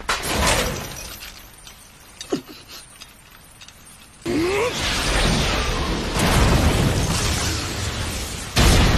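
Anime fight sound effects: a heavy impact that fades into a lull, then a sudden loud crash with a short cry about four seconds in as a three-section staff strikes. Dense rushing noise follows, and another hard hit lands near the end.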